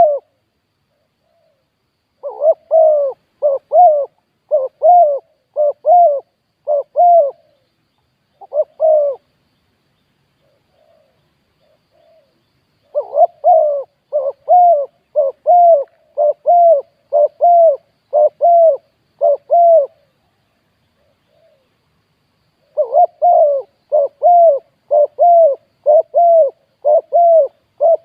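Spotted dove cooing: runs of short, rounded coo notes about one a second, in three bouts broken by pauses of a few seconds.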